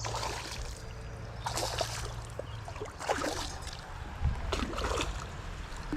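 Creek water running, with a few short splashes and knocks scattered through.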